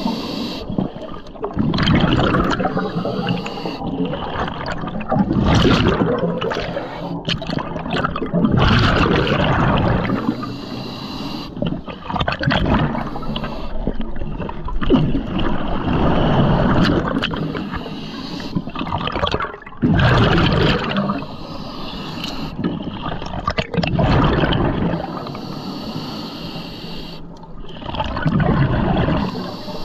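Underwater bubbling and gurgling that swells and fades in surges about every three to four seconds.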